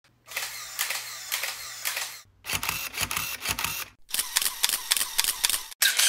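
Camera shutters and film-advance mechanisms clicking in three short runs of rapid clicks, each about a second and a half long, with brief silences between them.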